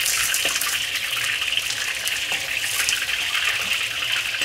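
Battered chicken pieces deep-frying in hot oil in a wok during their second fry: a steady sizzle with scattered crackling pops.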